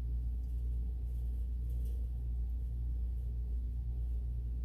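A steady low hum with a faint pulsing just above it.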